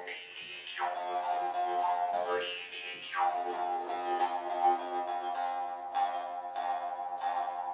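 Instrumental music with long held notes, fading out at the very end.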